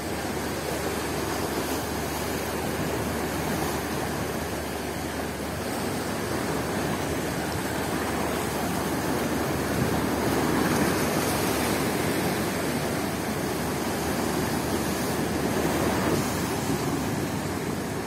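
Rough, wind-driven surf washing against a concrete jetty and breaking over a rock breakwater: a steady rush of churning water that swells a little about ten seconds in and again near the end.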